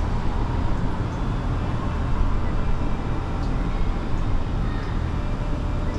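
Steady city background noise: a low, even rumble of traffic and building machinery heard in the open air between buildings.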